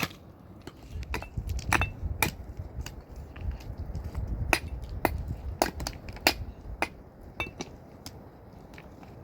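Irregular sharp clinks and knocks of hard objects striking, about a dozen, some with a brief ring, over a low rumble.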